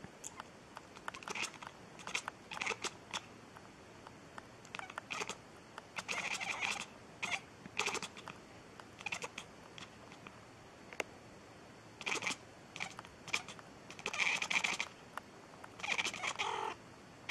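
A domestic cat chattering and chirping in short, irregular bursts, a few every second, with a handful of longer chirping cries midway and near the end.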